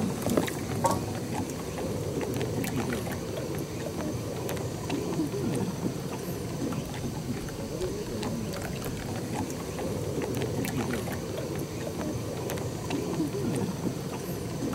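Water sloshing and lapping, a steady low wash with scattered small clicks.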